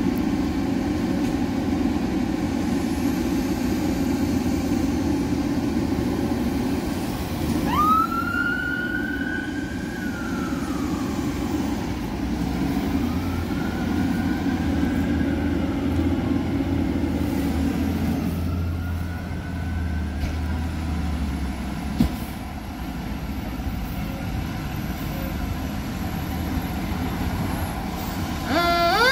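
A fire engine's engine idles with a steady low rumble. Siren whoops rise and slowly fall about a quarter of the way in and twice more later. An electronic siren starts to wail right at the end as the engine pulls out.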